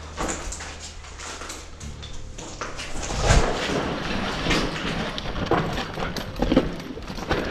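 Irregular crunching footsteps and knocks, rough-ground walking with gear rattling, starting about two and a half seconds in and getting louder.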